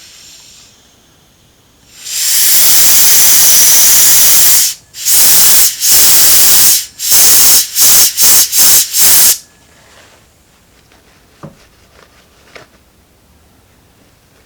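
Compressed-air blow gun blowing out and drying a carburetor float bowl: one long blast of about two and a half seconds, then about six short bursts in quick succession, then it stops.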